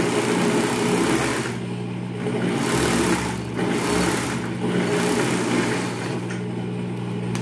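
Industrial overlock (serger) stitching a seam in four short runs, with its motor humming steadily in the pauses between runs.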